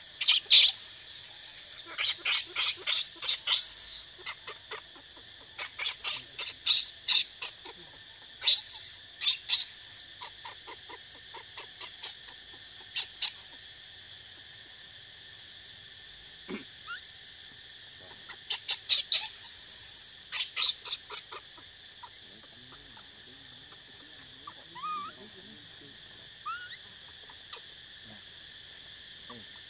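Infant macaque squealing in repeated bouts of rapid, high-pitched pulses, most in the first ten seconds and again about two-thirds through, over a steady high-pitched hum.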